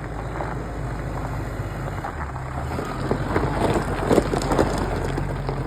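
Vehicle engine running with a steady low hum, with wind on the microphone. Scattered clicks and crackles come about three to five seconds in.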